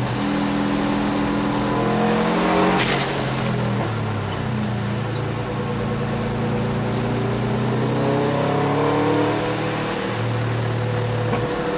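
Car engine heard from inside the cabin on a wet circuit, its revs rising and falling through the corners. A brief hiss and a click come about three seconds in.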